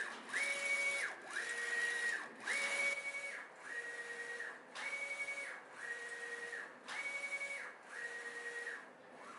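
Neixo X3040DH A3 direct-to-garment printer's print-head carriage sweeping back and forth over the T-shirt, about one pass a second. Each pass is a motor whine that rises, holds and falls, alternating slightly higher and lower from one pass to the next, eight passes in all, stopping near the end.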